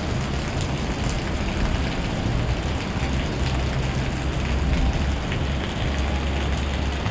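Steady rain falling on a wet paved street, an even hiss with a low rumble that comes and goes underneath.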